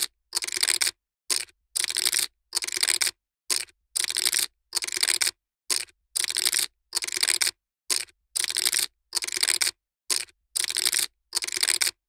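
Poker chips being shuffled by hand: repeated short bursts of clicking clatter, a little more than one a second, with silence between each.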